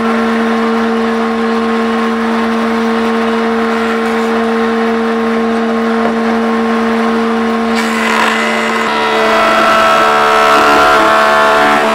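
Electric planer running with a steady hum. About eight seconds in, its cutterhead starts biting into the end grain of a jacaranda log slice pushed across the bed, adding a louder, harsher cutting noise with a whine.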